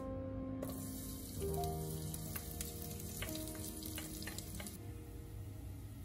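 Finely chopped vegetables sizzling in hot oil in a stainless steel pot, the sizzle starting suddenly about half a second in as they go into the pan, with scattered crackles. Soft background music plays over the first part and stops near the end.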